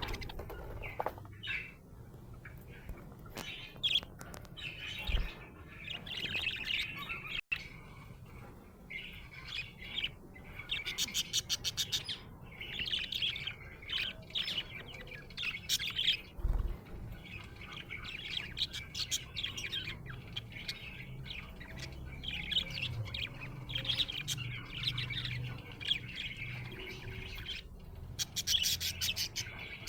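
Budgerigar chirping and chattering in rapid runs of high chirps, with short pauses between runs: the chatter of a contented budgie.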